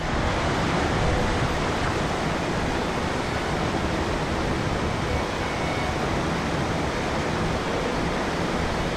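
Steady roar of a tall waterfall: a loud, even rush of falling water.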